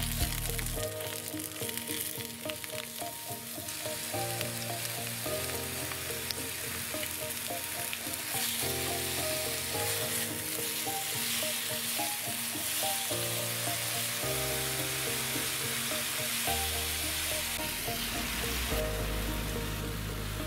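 Potato wedges sizzling as they fry in a pan, with a spatula scraping and turning them in the first few seconds; the sizzle grows fuller about four seconds in. Soft background music runs underneath.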